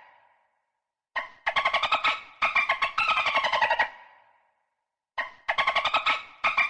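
Dolphin chattering: rapid trains of clicking pulses with a squealing whistle that falls in pitch. Two bursts come about four seconds apart, with a short silence between them.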